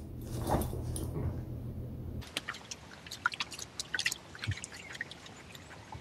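A beagle snuffling and rustling with its nose pushed into a fleece blanket in its dog bed. A little over two seconds in, this cuts to scattered small wet clicks and drips from shallow muddy water.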